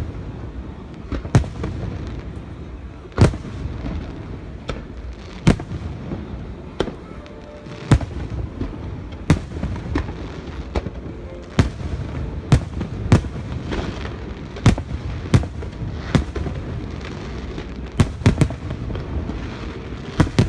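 Aerial fireworks shells bursting, a sharp bang about every second at uneven spacing, over a continuous low rumble of the display.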